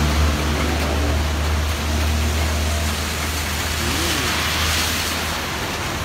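Storm wind and rain rushing as a whirlwind passes over, with a steady low rumble underneath that eases near the end.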